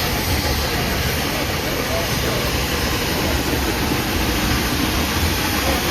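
Steady rumble and hiss of a moving excursion train, with no single knock or whistle standing out.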